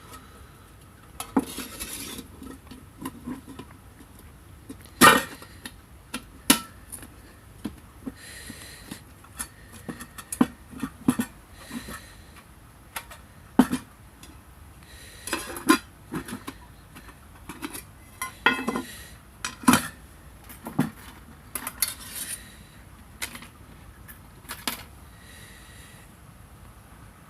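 Metal items clinking and clattering as they are handled: irregular light knocks and clinks, some ringing briefly, a few louder ones.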